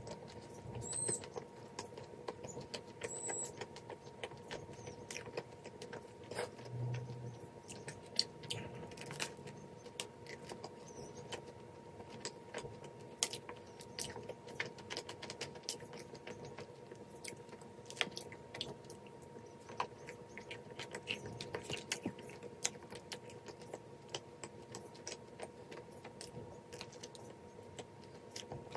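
Close-up mouth sounds of biting and chewing a flaky chocolate-cream-filled pastry: many small, irregular crackly clicks and wet chews. A faint steady hum runs underneath.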